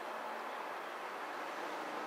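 Steady background hiss with a faint low hum and no distinct events.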